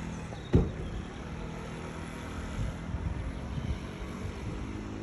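A steady low hum of an idling engine, with one sharp thump about half a second in.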